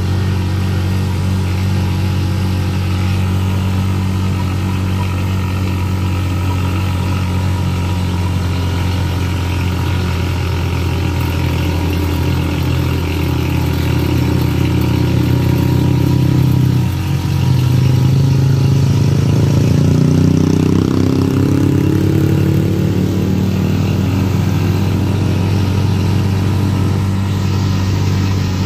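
Engine of an open-sided passenger vehicle running steadily on the move, heard from the passenger seat. About two-thirds of the way through the note dips briefly, then climbs as the vehicle picks up speed.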